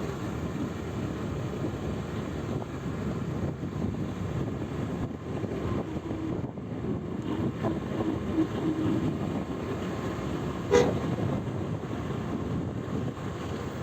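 Vehicle driving along a road: a steady engine and road rumble, with one short, sharp louder sound about eleven seconds in.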